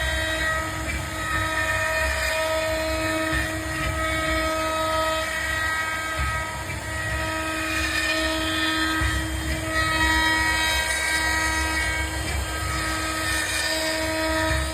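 CNC router spindle whining steadily while cutting wood, with a low rumble that swells and fades as the bit works through the carving.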